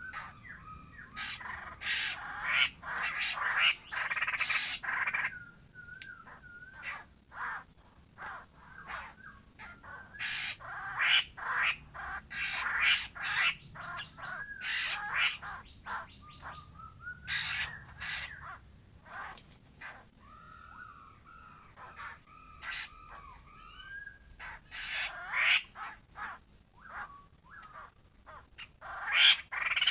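Laughingthrush calling: clusters of harsh, rapid chattering calls alternating with short wavy whistled notes, in bursts separated by brief pauses.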